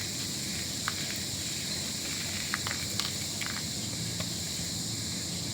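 Steady high-pitched drone of insects, with a few faint light clicks.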